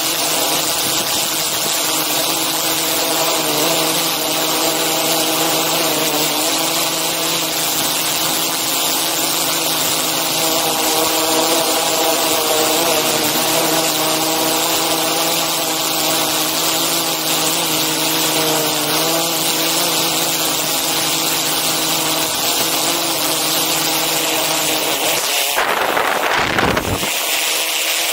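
DJI Inspire 2 quadcopter's motors and propellers, heard from the camera it carries: a loud, steady whine of several pitched tones over a rushing hiss. Near the end a brief rush of noise cuts across it.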